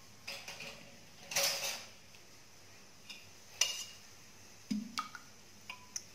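Stainless steel bowl and spoon being handled around a clay pot: a handful of short clinks and knocks spread out over a few seconds, with a brief scraping rush about a second and a half in.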